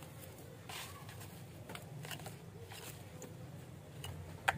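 Hand pruning shears cutting through the dry leaves of potted rain lilies: a few faint snips with rustling of the dry foliage, and a sharper click near the end.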